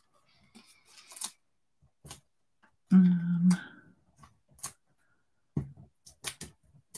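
Small clicks and taps of paper and craft pieces being handled on a desk mat, scattered and sparse. A woman's voice gives a short wordless murmur about three seconds in.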